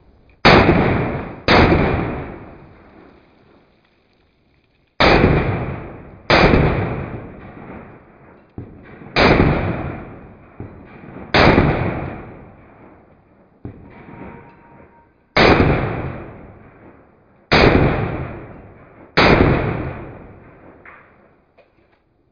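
Handgun shots: about nine loud reports at uneven intervals, each with a long trailing decay, along with a few fainter ones.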